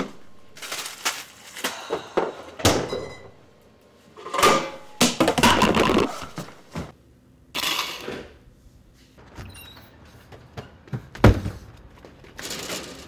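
Irregular knocks and thuds, with a sharper bang about eleven seconds in.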